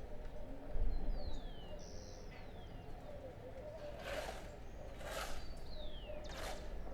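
Outdoor street ambience. Birds call in short falling whistles over a steady low traffic rumble, and three short harsh noisy bursts come about a second apart in the second half.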